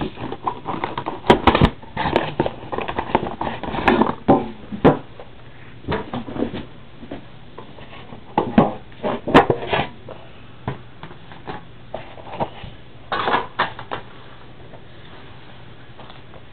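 Hands working at the metal tin of an Upper Deck The Cup hockey card box, struggling to get the lid open: irregular clicks, knocks and scraping of the tin, coming in a few louder clusters.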